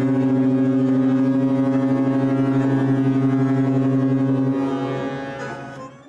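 A ship's horn sounding one long, deep, steady blast that tapers off and stops near the end.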